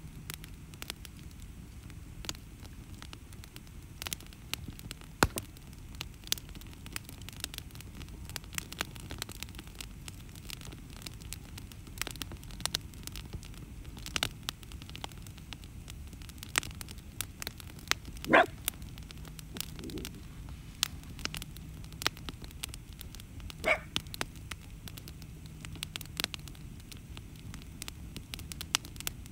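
Log campfire crackling, with frequent sharp pops over a low steady rumble of flames. A dog barks twice, the louder bark about two thirds of the way in.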